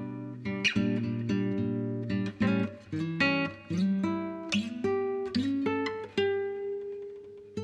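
Background music: acoustic guitar, plucked notes and strummed chords.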